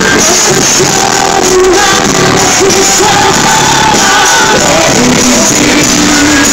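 Live pop music played loudly through an arena sound system, with a singer's voice carrying the melody over the band.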